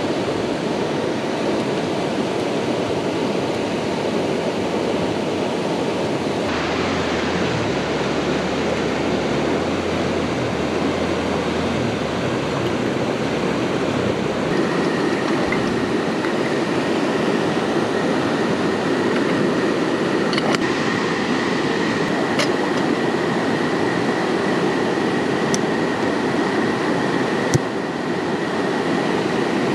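Steady, loud rush of water, from heavy rain or the river. A faint steady high tone joins about halfway through, and there are a few faint ticks near the end.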